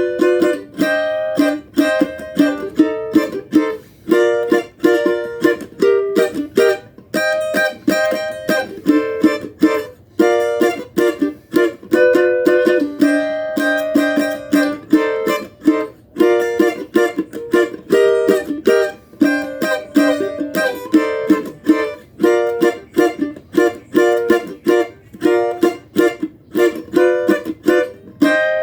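Cavaquinho strummed in a steady rhythm of chords.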